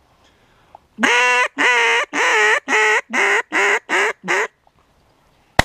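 Duck call blown in a run of about eight loud quacks, each shorter than the last, then a single shotgun shot near the end.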